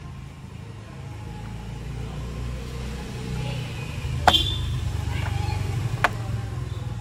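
Low rumble of a motor vehicle engine that grows louder over the second half. Two sharp taps, about four and six seconds in, come from a foam-board window cover being pressed into a car door's window frame.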